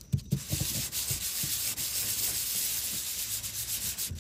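The aluminium housing of a VW TDI ALH vacuum pump being rubbed back and forth by hand on flat 600-grit sandpaper: a steady gritty scraping, after a few light knocks at the start. The part is being lapped flat to take scratches out of its face, so that the pump works properly again.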